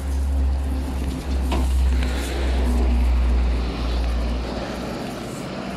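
Road traffic on a city street: cars passing on the road beside the sidewalk, with a heavy low rumble that swells about two seconds in and eases toward the end.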